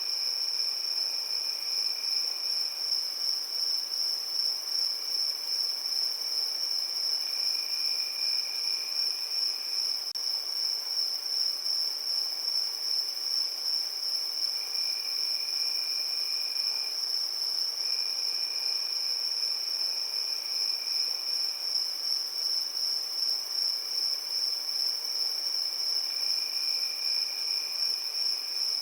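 Crickets chirping in a steady chorus: one unbroken high-pitched trill, with a second, lower trill that comes and goes in stretches of two to four seconds.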